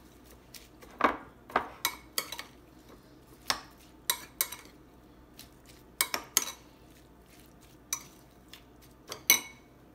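A utensil knocking and clinking against a bowl at irregular intervals while coleslaw is stirred and mixed. The loudest knock comes near the end.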